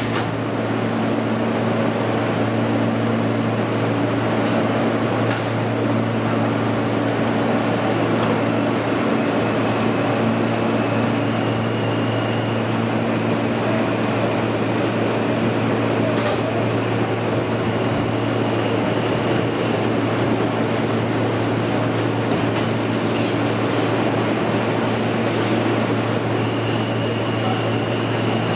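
Steady low hum inside an R160A subway car from its air conditioning and onboard equipment. A faint high steady tone comes in twice, for a couple of seconds each time.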